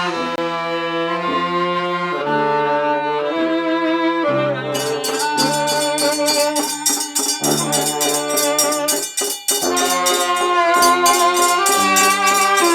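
Brass-band music: horns playing a melody in held notes, joined about five seconds in by a fast, steady percussion beat.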